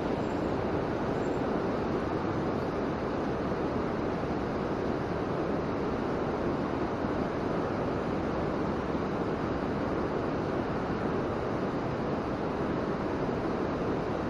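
Steady rush of a fast-flowing hill stream, an even, unbroken water noise with no breaks or single events.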